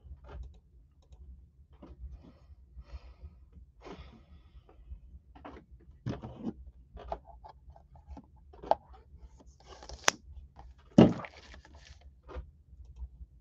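A trading-card hobby box handled on a tabletop: scattered light taps, scrapes and rustles, with a sharp click about ten seconds in and a louder knock just after.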